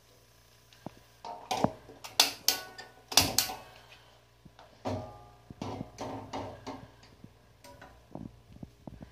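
Kitchen clatter: irregular clicks, knocks and metal clinks of cutlery being rummaged in a utensil holder and a spoon knocking in a pot. The loudest clinks ring briefly and come a little over two to three and a half seconds in.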